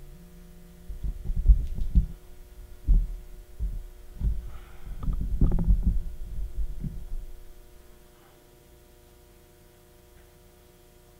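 Irregular low thumps and rumbling of handling noise over a steady electrical hum. The thumps stop about eight seconds in, leaving only the hum.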